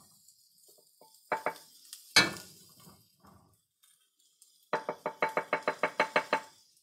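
Wooden spoon knocking sushi rice into a bowl: two single knocks, then a fast run of a dozen or so ringing taps against the bowl near the end, about eight a second, shaking the sticky rice off the spoon.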